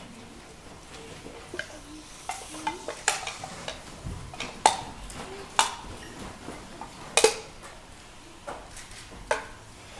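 Sharp hand slaps and strikes from a Pencak Silat open-hand form, coming at irregular intervals a second or so apart, the loudest about four and a half and seven seconds in, with a dull thud of a foot on the mat about four seconds in.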